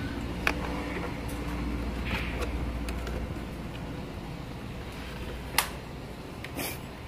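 A few sharp clicks and light taps from hands working on a motorcycle's quick-shifter wiring and parts, the loudest click about five and a half seconds in. Under them a low steady hum drops away about three seconds in.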